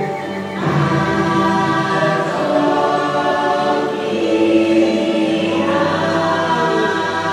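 Choral singing over music, with several voices holding long notes. It swells up about a second in and again around four to five seconds in.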